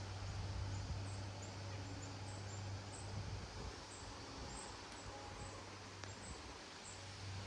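Gusty wind outdoors: a steady broad rush that swells and eases slightly, with a low hum under it and faint, repeated high chirps.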